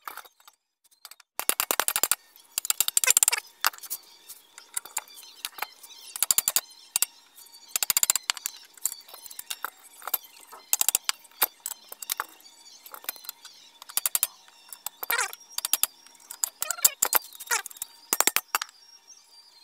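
Hammer striking metal in quick bursts of rapid taps, knocking a mono shock absorber's mount into the bracket on a motorcycle swingarm.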